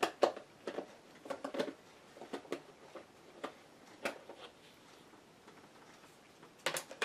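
Plastic lid being pried and peeled off a tub of whipped topping: a string of short, irregular plastic clicks and crackles, with a quick pair of louder clicks near the end.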